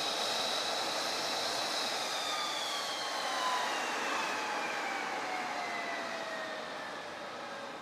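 F-35A Lightning II's Pratt & Whitney F135 turbofan spooling down: a high whine that falls steadily in pitch over several seconds and slowly fades, as the engine runs down after shutdown.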